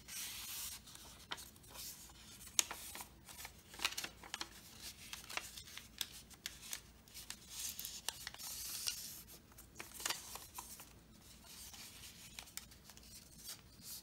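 Paper being handled and folded by hand: rustling and rubbing with scattered small sharp clicks and taps.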